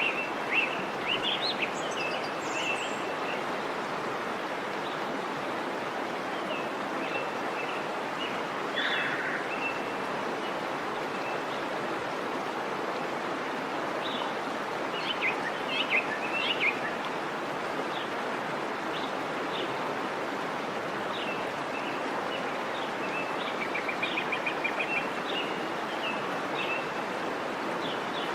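Waterfall rushing steadily, with birds chirping over it; near the end one bird gives a quick run of rapid repeated notes.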